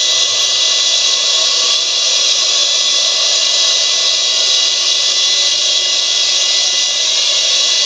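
DC-9 jet engine sound effect played from an MP3 player through small two-and-a-half-inch PC speakers mounted inside a model airliner's fuselage. It is a steady, high rushing hiss with a thin whine held on one note.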